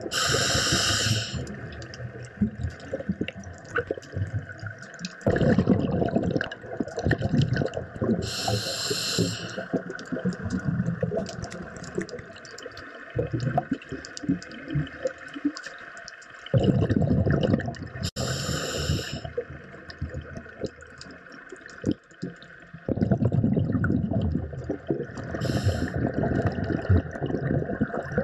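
Scuba diver's regulator breathing underwater: a short hiss of inhalation about every eight to ten seconds, with long rushes of bubbling exhaust between them.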